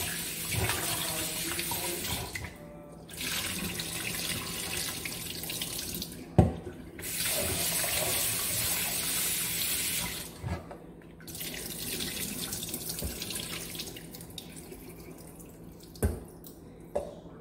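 Kitchen tap running into a sink while raw beef is rinsed under it to get rid of its gamey smell. The stream breaks off briefly three times and is weaker in the last few seconds, with a sharp knock about six seconds in and another near the end.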